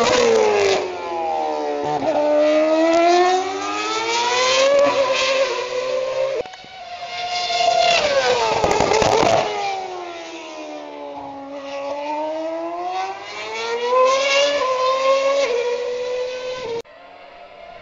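Formula One cars' high-revving 2.4-litre V8 engines passing on track: twice the sound peaks as a car goes by, and the engine note falls and then climbs in steps through upshifts as the car accelerates away. Near the end the sound cuts to a fainter, distant engine note.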